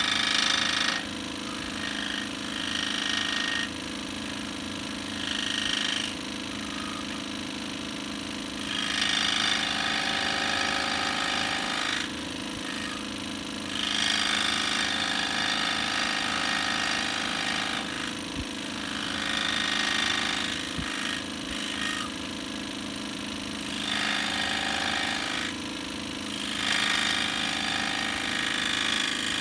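Tabletop scroll saw running with a steady fast reciprocating buzz as its fine blade cuts a small wooden puzzle piece. A louder rasping cutting noise swells and drops back in stretches of a few seconds as the wood is fed into the blade.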